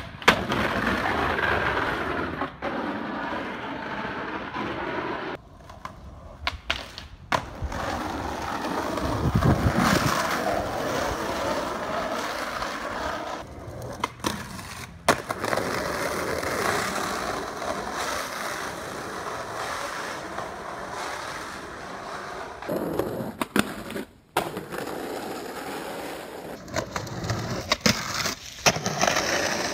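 Skateboard wheels rolling on pavement, broken by sharp clacks of the board popping and landing. The sound cuts off abruptly several times between separate tricks.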